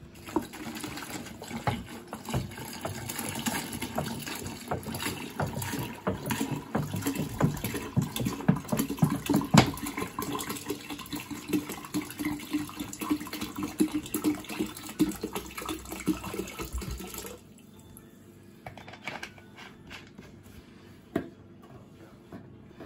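Water pouring steadily into a container, stopping abruptly about seventeen seconds in; a few light knocks follow.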